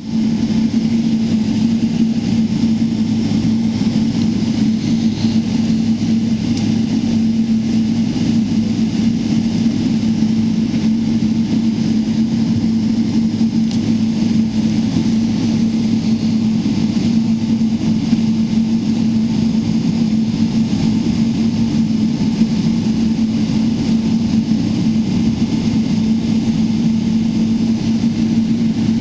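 Steady cabin drone inside a Boeing 777-300ER with its GE90 engines at idle: a constant low hum over an even rush of air, with no build in power.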